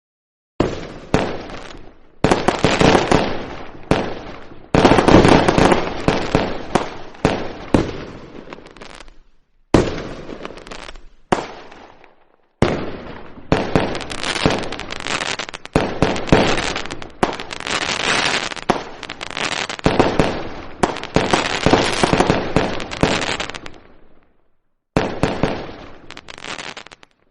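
Firecrackers going off in dense runs of rapid cracks and bangs, in several barrages separated by short pauses.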